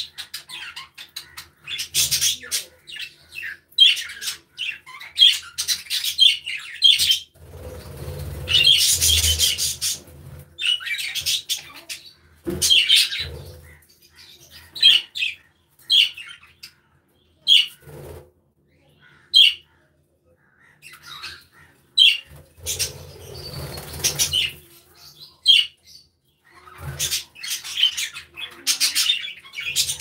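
A flock of budgerigars chirping and chattering in quick, short high calls. Twice there is a longer noisy rustle, and the calls thin out briefly past the middle.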